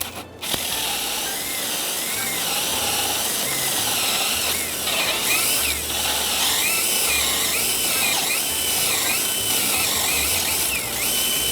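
Power drill boring a hole through house siding and plywood sheathing, running steadily, its motor pitch wavering as the bit loads up. It starts about half a second in and cuts off at the end.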